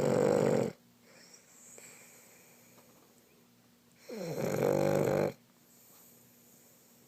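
A dog snoring: one loud snore at the start and another about four seconds in, each lasting about a second, with faint breathing in between.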